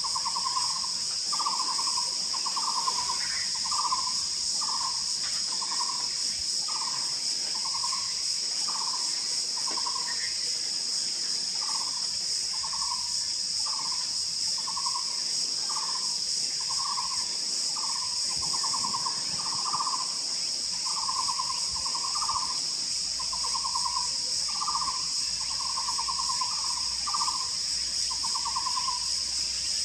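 Taiwan barbet calling, a steady series of short hollow notes about one a second, some drawn out into a short trill, over a constant high-pitched drone of insects.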